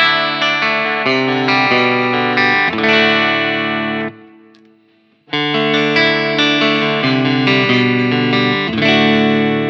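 Electric guitar played through a BSM Starbreaker transistor overdrive into a Marshall Plexi amp, strumming a crunchy chord riff. The phrase lasts about four seconds and rings out, then is played again about five seconds in.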